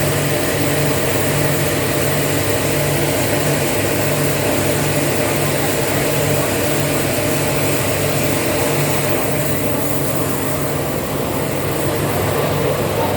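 Toyota Axio Hybrid's 1.5-litre four-cylinder petrol engine running steadily, with a low hum that pulses about twice a second, after a chemical combustion-chamber cleaning meant to cure its oil burning and knocking.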